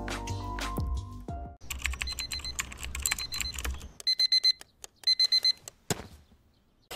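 A short music phrase ends. Then comes about two seconds of rapid computer-keyboard typing clicks. Then an electronic alarm clock beeps, in two quick runs of about four high beeps each.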